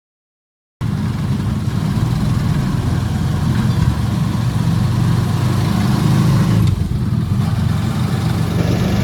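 A vehicle's engine running steadily with a loud, low rumble, starting abruptly under a second in.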